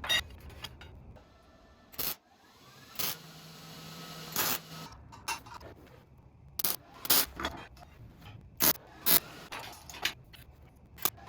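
Workshop build sounds: a series of sharp knocks and clanks of parts being handled and fitted, with a small motor running steadily for a couple of seconds about three seconds in.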